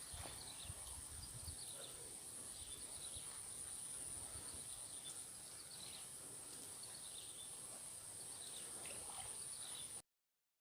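Outdoor ambience of a steady, high-pitched insect drone, with repeated short chirping bird calls. It cuts off abruptly to silence near the end.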